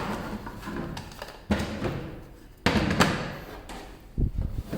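Small plastic drill bit case and its bits being handled, with bits being pried out of their holders. There are two sharp knocks about a second apart, then a few dull thuds near the end.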